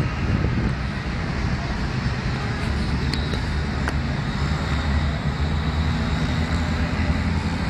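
Steady low rumble of street traffic, with two faint sharp clicks about three and four seconds in.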